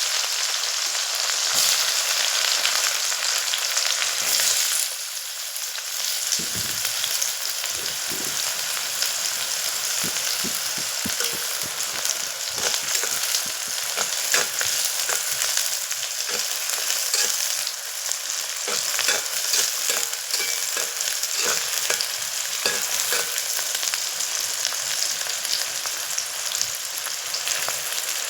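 Food sizzling in hot oil in a pan while a spatula stirs it, scraping and clicking against the pan. The sizzle is loudest for the first few seconds and drops slightly about five seconds in.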